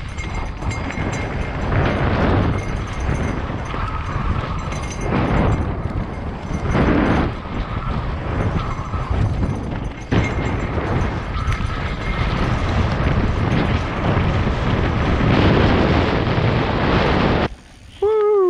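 Wind rushing over a helmet-mounted camera microphone while mountain bike tyres roll and rattle over a rocky dirt trail on a fast descent, with rising and falling surges. The noise cuts off suddenly near the end, and a short falling tone follows.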